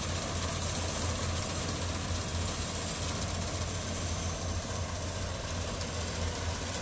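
Yanmar AW70GV crawler combine harvester's diesel engine running steadily under load as the machine moves, a deep, even hum with a hiss over it.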